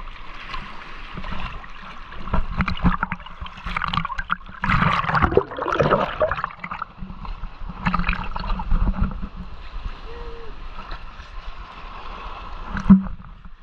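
Kayak paddling: water splashing and gurgling in uneven bursts, with one sharp knock near the end.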